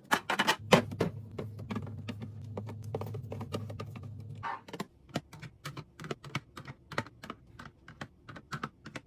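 Quick, uneven light clicks and clacks of packages and containers being handled and set down while restocking a fridge, with a low hum under the first half.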